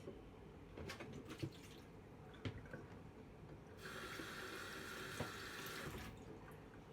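A few light knocks, then a kitchen tap runs into a sink for about two seconds, starting about four seconds in and shutting off.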